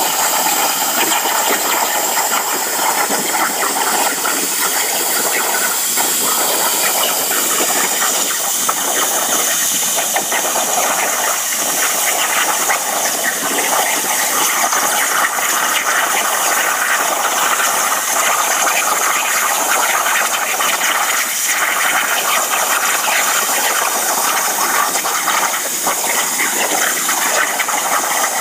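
Plasma cutter torch cutting steel over a water table: a loud, steady hiss.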